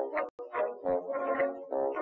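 Background music led by brass instruments, playing short, separate notes with a brief break near the start.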